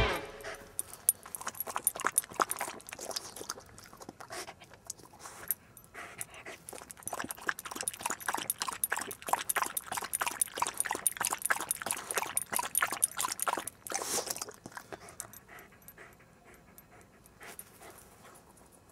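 A dog lapping water from a frisbee, a quick run of wet clicking laps that is busiest through the middle and thins out near the end, with some panting.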